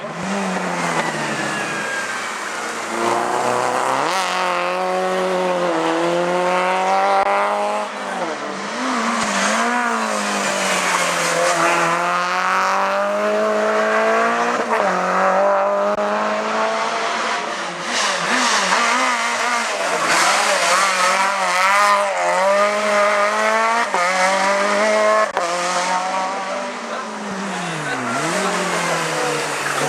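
Hillclimb race car engines at hard acceleration, the pitch climbing through the revs and dropping sharply at each gear change or lift, over and over.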